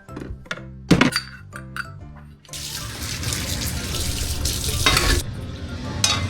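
Background music, then a tap turned on about two and a half seconds in, with water running steadily into a sink.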